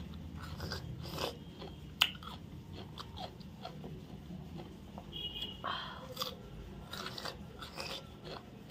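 A person biting and chewing fresh cucumber close to the microphone: wet crunching and mouth clicks, with one sharp click about two seconds in.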